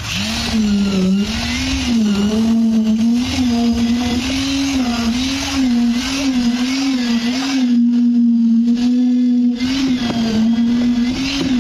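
Concrete needle vibrator running, a loud steady motor hum whose pitch dips and wavers as the needle is worked into the freshly poured concrete of the stair, then holds steadier for the last few seconds.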